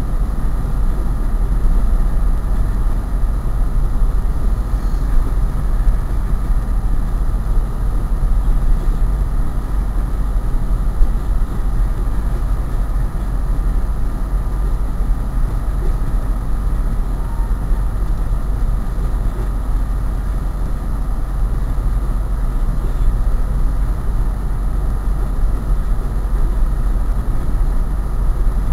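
Diesel locomotive running with a steady, loud low rumble.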